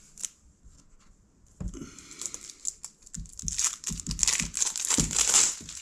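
Packaging being torn open and crinkled by hand, starting after a short quiet with a click and growing louder and denser toward the end.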